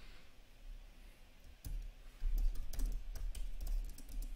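Typing on a computer keyboard: a few scattered keystrokes, then a quick run of keys from about one and a half seconds in.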